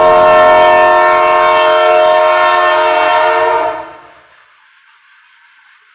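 Toy bullet train's electronic horn sounding: one long, steady blast lasting nearly four seconds, then dying away.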